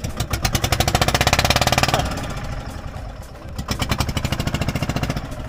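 A small engine running close by with a fast, even pulse; it is loudest over the first two seconds, drops in pitch and level about two seconds in, then swells again briefly near the end.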